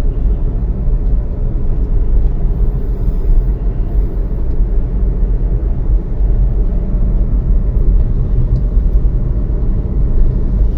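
Steady low rumble of a motor vehicle on the move: engine and road noise, even throughout.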